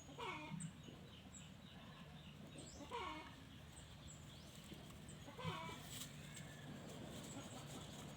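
A dog whimpering: three short whines, each falling in pitch, about two and a half seconds apart. Faint high chirps repeat in the background.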